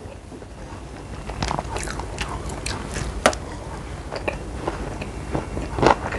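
Mouth sounds of someone chewing kimbap, a Korean seaweed rice roll: soft irregular wet clicks, with one sharper click about halfway through.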